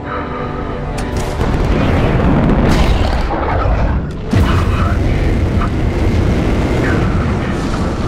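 Fighter jet engine noise swelling as the throttle goes forward into a loud, steady rush, with a brief dip and a sudden louder surge about four seconds in. Music with held notes sits under it at the start.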